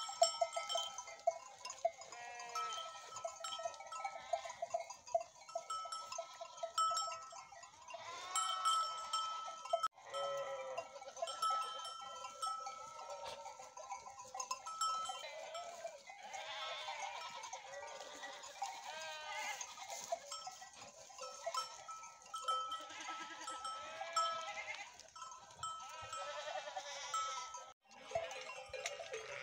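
A flock of sheep and goat kids bleating, many calls overlapping, with animal bells ringing among them.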